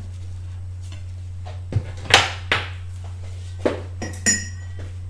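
Several knocks and clatters of crockery and kitchen utensils being handled, the loudest about two seconds in, and a ringing clink near the end, over a steady low hum.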